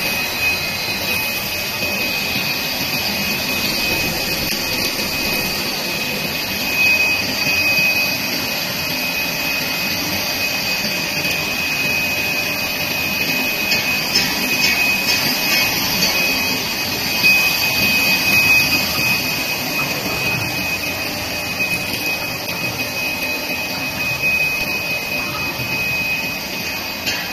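Air bubble film making machine running: a steady mechanical hiss with a thin, steady high whine above it.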